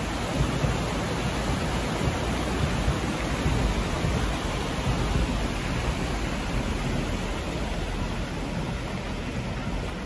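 Fast, turbulent river water rushing through rapids below a stone quay: a steady, even rush.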